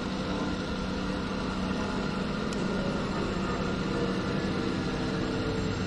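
A vehicle engine idling with a steady, even hum.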